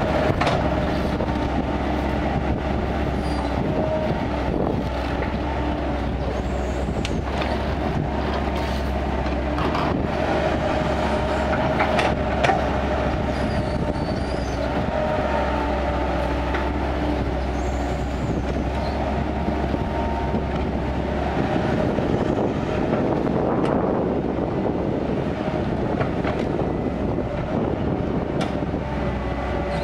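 Kobelco excavator's diesel engine running steadily as it works, with a few clanks and knocks scattered through.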